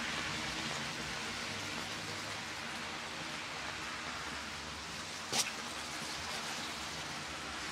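Steady hiss of light rain falling on wet pavement and road, with a single sharp click about five seconds in.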